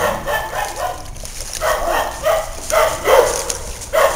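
A dog barking repeatedly in short, separate barks.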